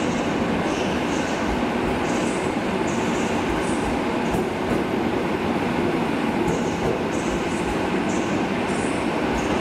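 Polregio EN57 electric multiple unit rolling past along the platform: a steady rumble of wheels and running gear.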